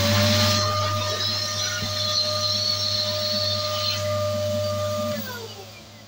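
Electric balloon pump running steadily, a motor hum and whine with rushing air, as it inflates a latex balloon. About five seconds in it is switched off and the whine falls away as the motor winds down.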